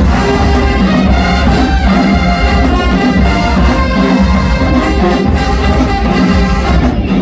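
Marching band playing loudly, a full brass section of trumpets and trombones carrying the music.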